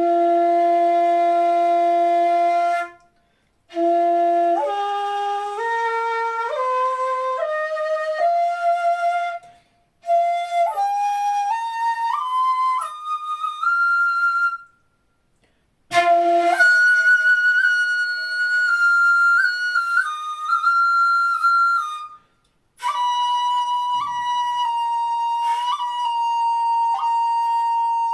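Jinashi shakuhachi, 1 shaku 5 sun long and pitched in F, played solo as a sound check. It opens on a long held low note, then steps up note by note through the lowest octave and on into the second, and ends with held high notes, each phrase separated by a brief pause for breath.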